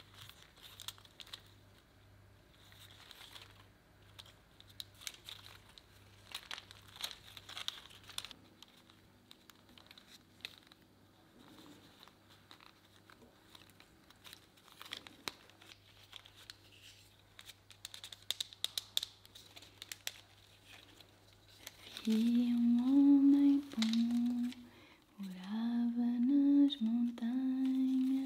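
Thin strips of birch bark rustling and crinkling as they are woven by hand, with small clicks. About 22 seconds in, a woman starts humming a tune in held, stepping notes.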